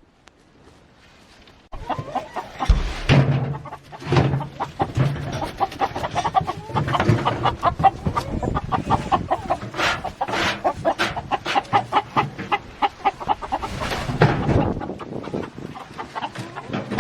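A flock of chickens clucking in a busy, overlapping stream of short calls, beginning about two seconds in.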